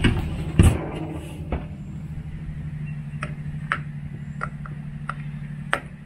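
Clicks and a knock of the hinge cover on a wine cooler's door being worked loose from its mounting tabs: one loud knock about half a second in, then five light clicks spread through the second half. A steady low hum runs underneath.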